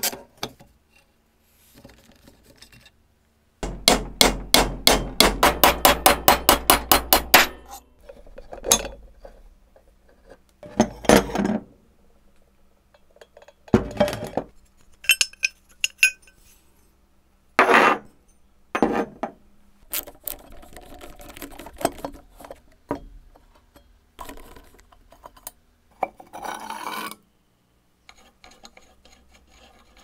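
Rusty cast-iron hand-crank coffee grinder being taken apart by hand: metal parts scraping, rubbing and clinking against each other as tools work them loose. About four seconds in comes a fast run of clicks, about five a second, lasting some four seconds.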